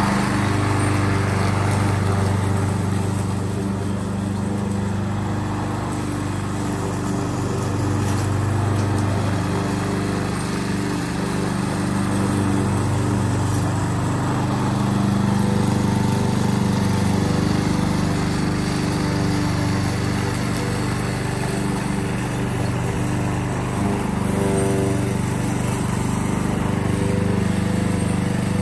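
Yardworks self-propelled gas lawn mower running steadily while cutting grass. Its level rises and falls a little as the mower moves back and forth.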